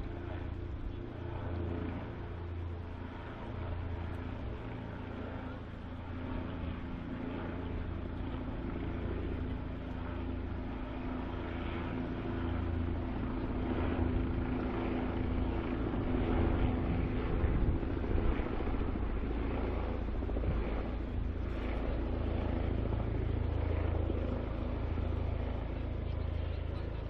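Lava flow crackling and clinking as its glowing crust breaks up and the blocks tumble, over a steady low hum and rumble.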